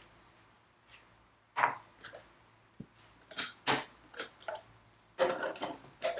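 Hard plastic blender lids being handled and pressed onto two blender jars, with a glass bowl set down on the counter: scattered clicks and light knocks, busiest near the end.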